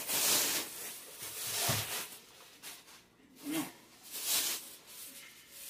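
Thin plastic grocery bags rustling and crinkling in several short bursts as they are handled and unpacked.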